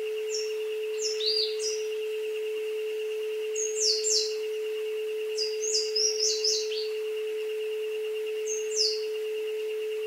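A steady pure tone near 432 Hz with a fainter wavering higher tone, under bird chirps from a jungle ambience: four clusters of short, high, downward-sliding notes, the busiest about two-thirds of the way through.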